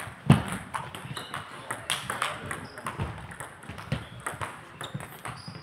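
Table tennis rally: the ball clicking sharply off the rackets and the table in quick alternation, about one hit every half second to second, the loudest about a quarter second in.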